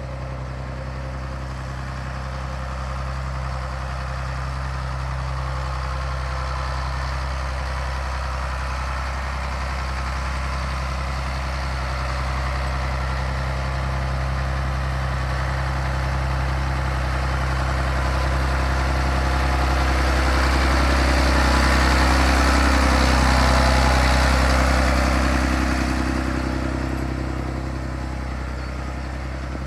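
Big John Deere row-crop tractor's diesel engine running steadily at low speed as the tractor drives slowly on dual rear wheels. It grows louder as it comes closest, about two-thirds of the way through, then fades a little.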